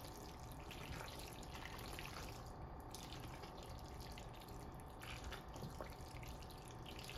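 Faint, soft wet sounds of a silicone spatula stirring thick macaroni and cheese in a stainless steel pot, over a low steady hum.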